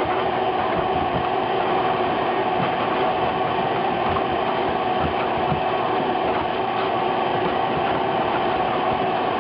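Vacuum cleaner running steadily, a motor whine over rushing air, as it sucks debris out of a car's interior.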